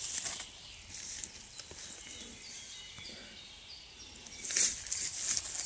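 Dry fallen leaves rustling as a mushroom is handled and someone moves across the leaf litter: a short rustle at the start, then louder crunching rustles from about four and a half seconds in.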